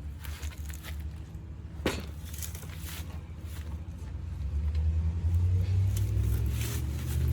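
A low, steady engine hum that grows louder about halfway through, with a sharp click just under two seconds in and light scraping of hand work on the bike.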